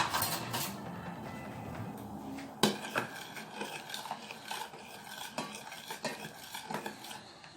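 Metal spoon clinking and scraping against a metal pot, with a sharp clank at the start and another about two and a half seconds in, then lighter taps that ring briefly.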